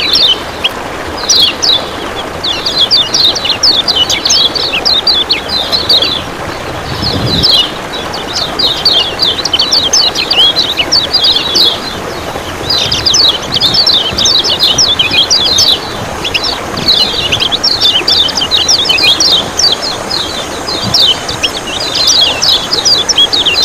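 Kecial kuning, a Lombok white-eye, singing fast chattering runs of high chirps, phrase after phrase with short pauses between, over a steady rush of running water.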